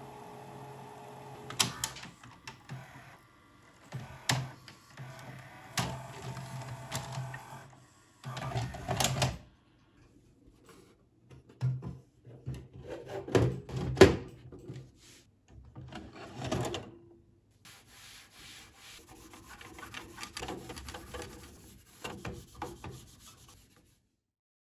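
A Grundig GVP 500R VCR's steady motor hum stops with a click about a second and a half in. Then come knocks, clicks and scraping as the VCR's top cover is handled and fitted back on, the loudest knock about halfway through, and near the end a cloth rubbing over the front panel.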